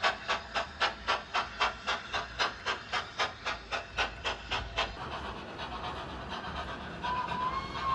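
Model Thompson A2 Pacific steam sound from a DCC sound decoder's speaker: steady exhaust beats at about three a second that stop about five seconds in, leaving a steady hiss as the locomotive drifts. A thin wavering tone begins about seven seconds in.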